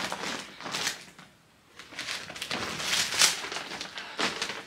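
Plastic shopping bag rustling and crinkling as it is handled and lifted, with a short quiet pause about a second in.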